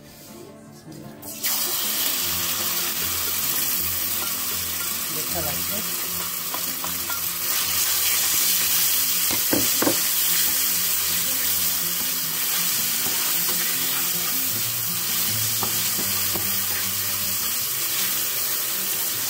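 Marinated chicken pieces sizzling in hot oil and caramelised sugar in a non-stick wok: the frying starts suddenly about a second and a half in, then holds steady and grows a little louder about eight seconds in. A couple of sharp utensil knocks against the pan come near the ten-second mark.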